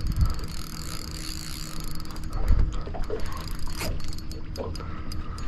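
Fishing reel clicking rapidly as a big flathead is played on light drag, with a couple of dull thumps.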